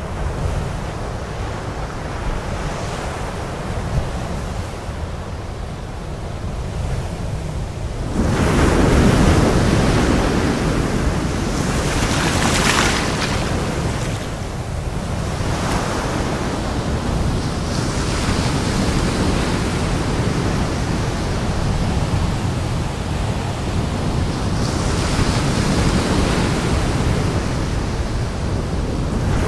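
Sea waves breaking and washing onto a shore in repeated surges, the biggest about eight seconds in and again around twelve seconds, over a steady low rumble of wind on the microphone.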